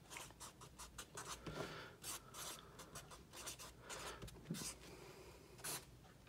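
Sharpie felt-tip marker writing on a paper pad: a quiet run of short, irregular scratchy strokes as letters are drawn.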